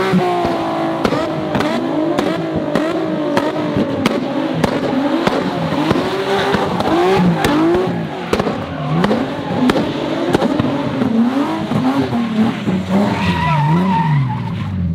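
A car spinning donuts: its engine revs up and down over and over while the tires squeal and skid, with sharp clicks scattered through.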